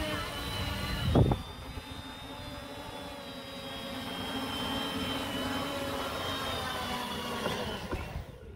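Electric motors and propellers of a homemade Styrofoam-box aircraft whining steadily at a high pitch that wavers a little. There is a loud thump about a second in. Near the end the whine falls in pitch and then cuts off.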